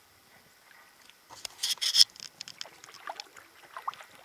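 Water splashing from a canoe paddle, coming in about a second and a half in and loudest around two seconds, followed by light drips and small knocks against the boat.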